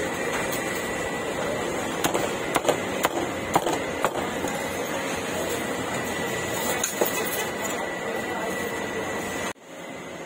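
Street food market ambience: a steady background din with a run of sharp clicks and knocks about two to four seconds in and another near the end. The sound drops away abruptly near the end to a quieter background.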